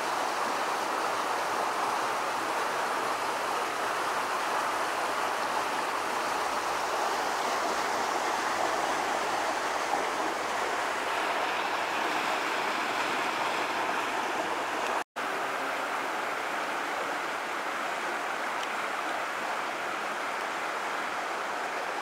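Mountain stream rushing over rocks: a steady wash of running water. It drops out for an instant about two-thirds of the way through.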